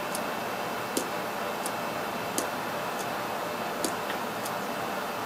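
Steady hiss of a quiet room with a faint thin whine, and small sharp clicks at uneven intervals, about one every second or less.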